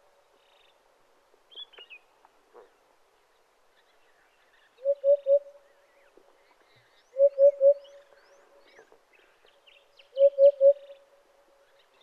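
African hoopoe calling a low hoop-hoop-hoop of three quick notes. It gives the call three times, starting about five seconds in and repeating every two to three seconds.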